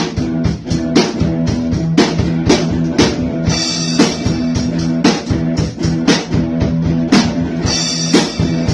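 A band jamming an instrumental passage: guitar over a steady drum-kit beat, with a cymbal crash about three and a half seconds in and another near the end.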